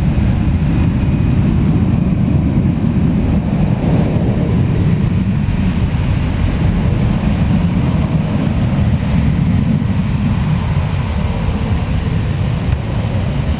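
Jet engines of an Airbus A320-200 airliner climbing out after takeoff: a steady low rumble that eases slightly near the end.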